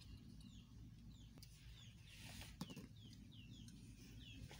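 Faint bird chirping: short falling peeps, two or three a second. A single knock about two and a half seconds in.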